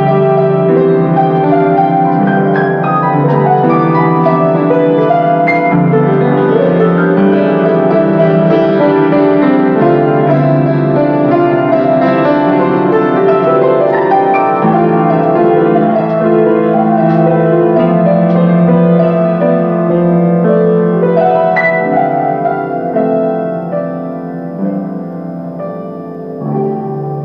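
Solo grand piano playing a slow, flowing piece of many sustained notes and chords, growing softer over the last few seconds.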